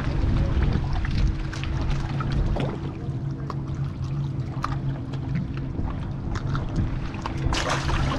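Small clicks and handling noises as a black sea bass is unhooked over a kayak, with water trickling. Near the end comes a short splash as the fish drops back into the water.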